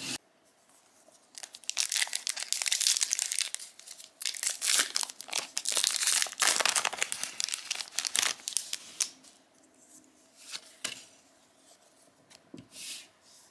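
A trading card booster pack wrapper being torn open and crinkled, in dense rustling stretches for several seconds. In the last third this gives way to a few scattered light clicks and taps.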